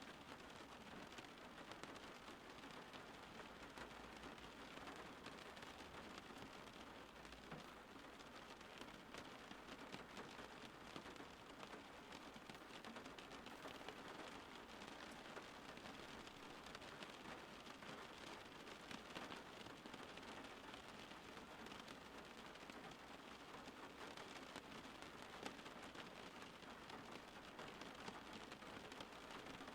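Faint, steady rain falling, an even hiss of many fine drops.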